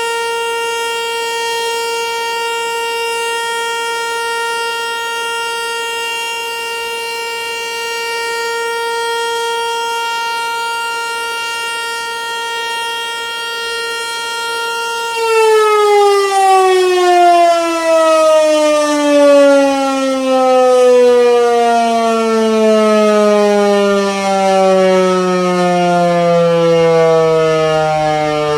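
American Signal Corporation T-121 electromechanical tornado siren, with aluminum horns, sounding a steady alert tone. About halfway through, the tone ends and the siren winds down, its pitch falling steadily while the loudness rises and falls.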